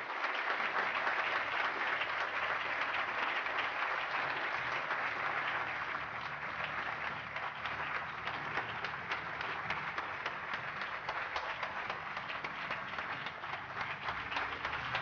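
Audience applauding: many hands clapping at once in a dense, even stream. It is loudest in the first few seconds, then eases off slightly.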